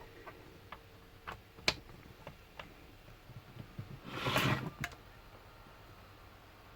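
Light clicks and taps of a laptop being handled, with a short scraping rustle about four seconds in and one more click just after.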